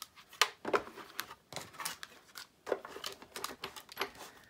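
A clear plastic embossing folder being handled and slid into a Cuttlebug embossing machine: a string of irregular sharp clicks and light taps of plastic on plastic.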